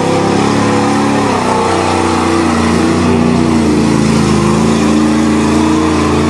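Chevy pickup's V8 engine revving hard under load as the truck spins its wheels through mud. The engine note dips about a second and a half in, then climbs steadily again.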